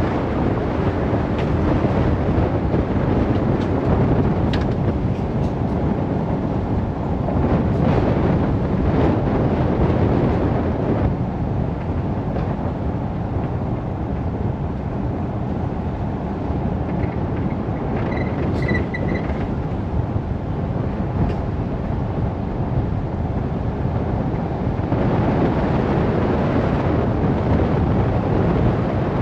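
Vehicle driving on a dirt forest road: a steady rumble of tyres and engine on the unpaved surface. Near two-thirds of the way through comes a brief high chirping.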